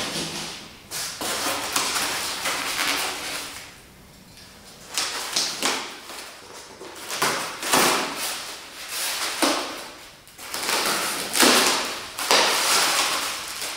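Scissors cutting open a large cardboard box, in several scraping, rustling strokes along its taped edge with short pauses between them.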